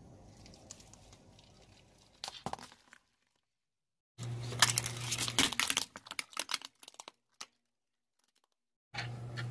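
Car tyre rolling over and crushing small plastic toy teacups and saucers: dense crackling with several sharp cracks over about three seconds, above a steady low engine hum. Earlier, after a quieter stretch of hum, a brief crunch is heard as the tyre presses on vegetables.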